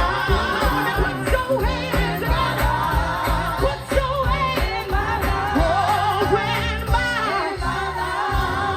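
Live gospel music: wavering voices singing over a band with a steady bass line and drum beat.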